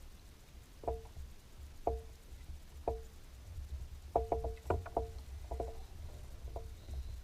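Small waves slapping against the boat's hull in short hollow knocks, about one a second at first and then several in quick succession, over a low rumble of breeze on the microphone.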